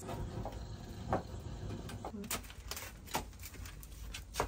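A fire of cardboard and chestnut husks crackling in a brick firebox, a few sharp pops now and then over a low steady rumble.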